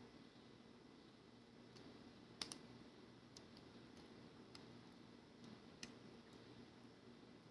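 A few faint metallic clicks of a lock pick and tension wrench working the pins of a Sparrows progressive practice lock, scattered and irregular, with the loudest, a quick double click, about two and a half seconds in.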